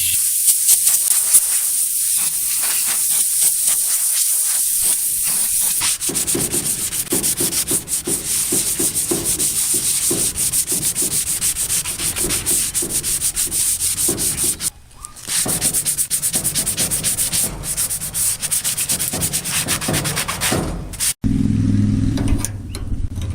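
Abrasive rubbing on the metal of a vintage Craftsman tool chest, hand-sanding or scrubbing it clean after a rust-removal treatment, in quick back-and-forth strokes. The rubbing pauses briefly about halfway through and breaks off abruptly near the end.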